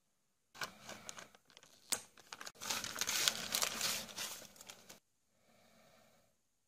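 Plastic packaging bags crinkling as they are handled, with sharp crackles about one and two seconds in. It is loudest in the middle and stops suddenly about five seconds in, followed by a softer rustle.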